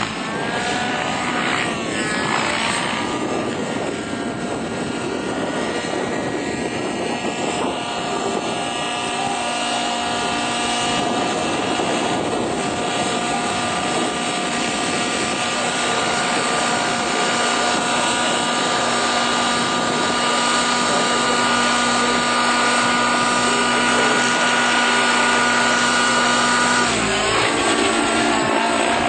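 Thunder Tiger Raptor 90 radio-controlled helicopter in aerobatic flight, its glow-fuel two-stroke engine running at a high, steady pitch. The pitch slides up and down in the first few seconds and shifts again near the end.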